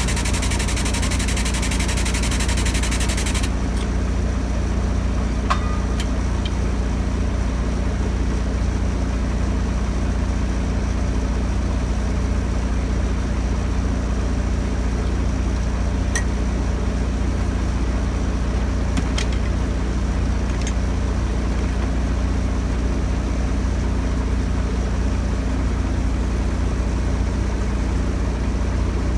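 Heavy diesel engine idling steadily with a low rumble. A high steady hiss, like air escaping, cuts off sharply about three and a half seconds in. A few light clicks follow later.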